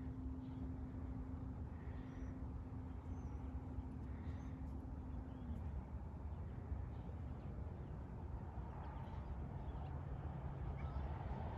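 Outdoor rural background: a steady low rumble with an engine-like hum that stops about five seconds in and a lower hum coming in near the end, with faint bird chirps over it.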